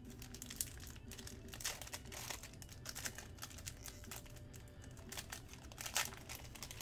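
Foil wrapper of a Panini Select basketball card pack crinkling as it is handled and opened, a run of short crackles with the loudest ones about two seconds in and near six seconds.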